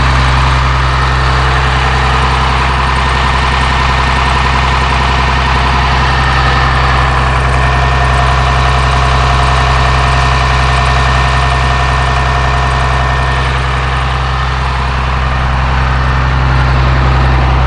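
Cummins ISC 8.3-litre turbo diesel engine idling steadily.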